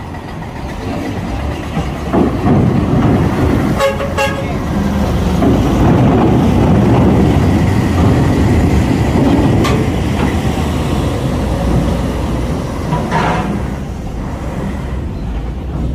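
Heavy flatbed truck loaded with an excavator driving up onto a ferry's loading ramp, its diesel engine working steadily under load and growing louder to a peak mid-way before easing slightly. A short toot of a horn comes about four seconds in.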